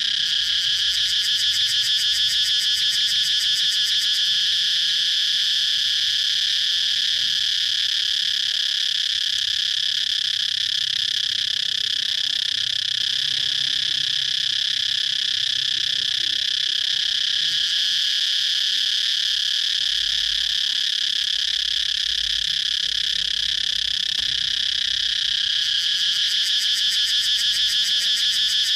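Cicadas singing in one continuous high-pitched buzzing drone. A fast pulsing rattle comes through in the first few seconds and again near the end.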